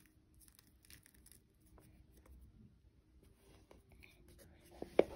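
Faint, scattered ticks and rustles of dry seed mix being handled in a ceramic bowl, with one sharp knock near the end.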